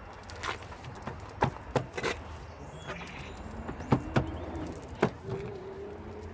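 Irregular sharp clicks and knocks, about a dozen, from hand work fitting parts on a car's rear bumper. In the second half a faint low wavering coo runs under the knocks.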